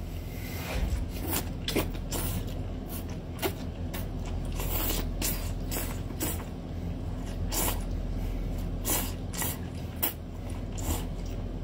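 Wet slurping and sucking as a long octopus tentacle coated in chili oil is drawn slowly into the mouth, with irregular smacking and chewing clicks over a steady low hum.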